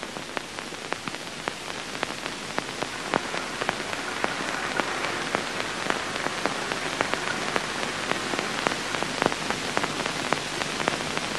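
Steady hiss with irregular crackling clicks, several a second, from the worn optical soundtrack of an old film print, with no narration or music over it.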